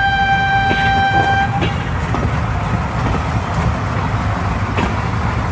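A horn sounds one steady note for about a second and a half. Under it a steady low rumble with scattered clicks runs on.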